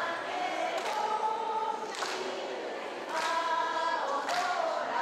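A group of women singing together in unison without accompaniment, in held phrases of about a second each: a song sung to keep time for an otedama beanbag-passing game.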